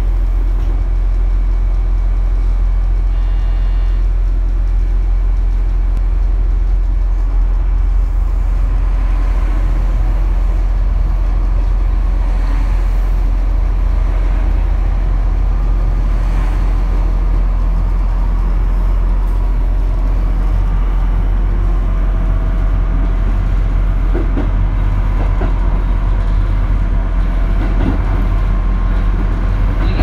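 Diesel railcar heard from the driver's cab, pulling away from a station: a steady low engine rumble, with a faint rising whine as the train gathers speed.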